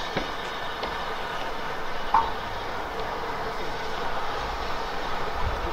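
Rebuilt Bulleid West Country class steam locomotive 34027 Taw Valley rolling slowly with a steady hiss. A brief high squeak comes about two seconds in, and a low rumble builds near the end.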